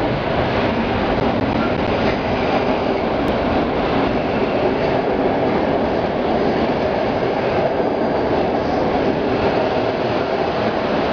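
Electric locomotive and a rake of passenger coaches running along an underground station platform: a steady, loud wheel-on-rail rumble from the train.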